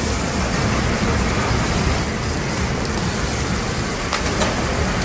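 Beef burger patty sizzling on a hot grill grate: a steady, loud hiss with a couple of faint pops about four seconds in.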